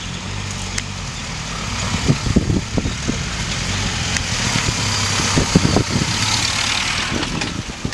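Engine of an ex-military Land Rover Lightweight running as it drives up rough ground toward and past close by, growing louder to about six seconds in and then easing. A few short low thumps come in around two to three seconds in and again at five to six seconds in.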